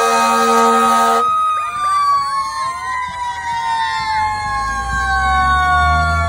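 Fire engine sirens: a held horn blast cuts off about a second in, then a siren winds slowly down in pitch, with other sirens wavering over it. A low engine rumble from the fire trucks builds from about halfway.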